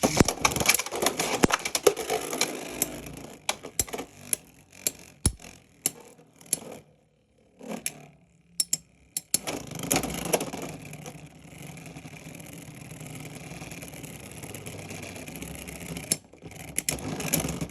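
Beyblade X spinning tops launched into a plastic stadium, clacking against each other in a rapid run of sharp hits, then spinning on with a steady grinding whir. The battle ends in an outspin, with one top outlasting the other.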